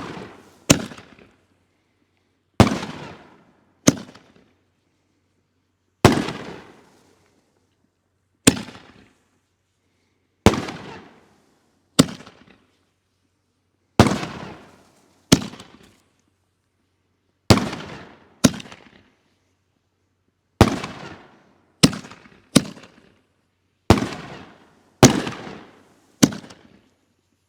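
Holy Nishiki 5-inch canister firework shells being fired in quick succession: about twenty sharp booms at irregular intervals of half a second to two seconds or so, each trailing off over about a second.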